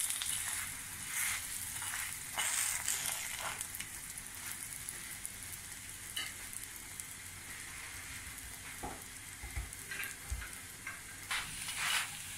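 Stuffed paratha sizzling in ghee on a tawa, a steady frying hiss. The spatula presses and scrapes it a few times in the first few seconds and again near the end.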